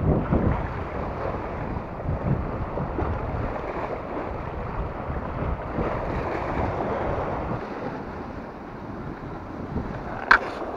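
Sea waves washing and splashing against shore rocks in uneven surges, with wind rumbling on the microphone. A short sharp click comes near the end.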